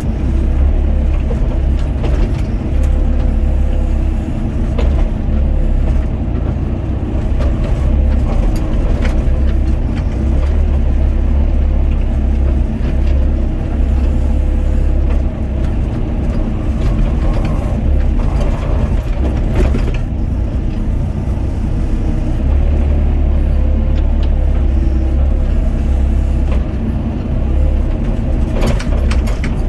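Doosan DX55 mini excavator's diesel engine running steadily under digging load, its pitch and loudness swelling and easing as the hydraulics work the boom and bucket. Scattered short knocks and scrapes of the bucket in gravelly soil.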